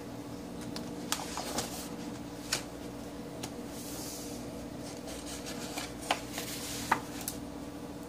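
Pages of a sketchbook being handled and turned over by hand: paper rustling and sliding, with several sharp crinkles and taps, over a steady low hum.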